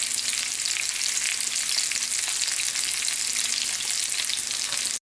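Lamb chops sizzling as they fry in oil with a masala mix, a steady crackling hiss that cuts off abruptly near the end.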